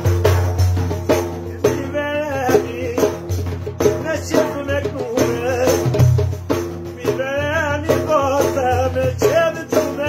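A man beating a large frame drum with jingles in a steady rhythm, deep thumps with a jingling rattle, while singing a wavering, ornamented melody in two phrases, a short one about two seconds in and a longer one from about seven seconds.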